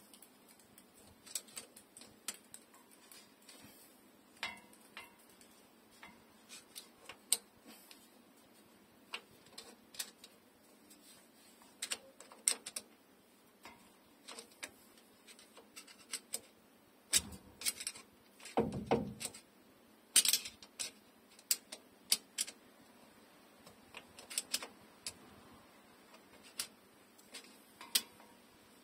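Irregular light metallic clicks and taps of a hand tool working on the open rear differential's carrier and ring gear, with a cluster of louder knocks a little past halfway.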